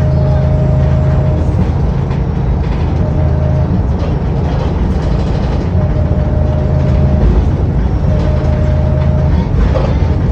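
Diesel engine and drivetrain of a VDL-chassised Wright Pulsar 2 single-deck bus under way, heard from inside the passenger cabin. The engine note breaks off and picks up again a few times as the bus drives.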